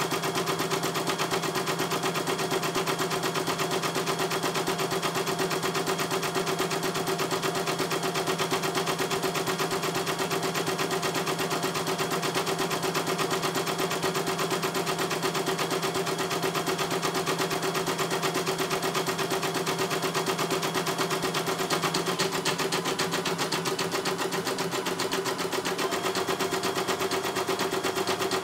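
CNY E900 computerized embroidery machine stitching out lettering, its needle running in a rapid, even chatter while the embroidery arm steps the hoop. The sound is steady throughout.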